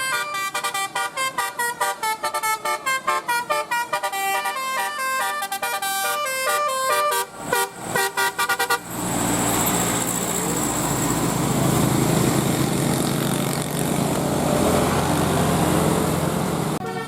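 Basuri 'telolet' multi-tone bus horn playing a fast melody of short stepped notes, then a few short blasts. After that, a loud steady rushing noise for about eight seconds, before the horn melody starts again right at the end.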